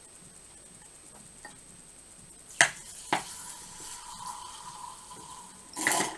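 Vinegar poured from a glass bottle into a glass tumbler. Two sharp clinks of glass about two and a half and three seconds in, then a steady trickle of liquid into the glass, with a louder burst just before the end.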